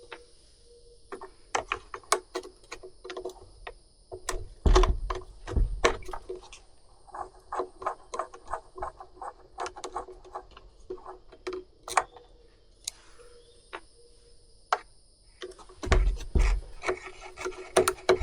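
Clicks, taps and knocks of hands and tools working on the plastic housing of a Stihl BG 65C leaf blower. There is a run of quick clicks in the middle, and heavier knocks about five seconds in and again near the end.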